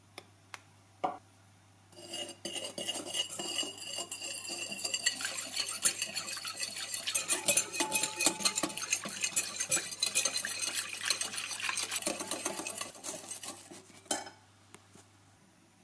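A utensil being stirred quickly around a bowl, making dense rapid clinks against its sides for about twelve seconds. A few single clicks come before the stirring, and a knock follows as it stops.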